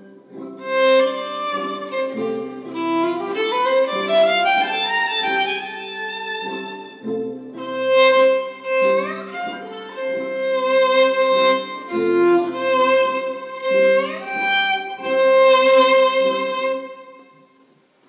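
Solo violin playing a melodic interlude, with several notes reached by upward slides. It stops about a second before the end.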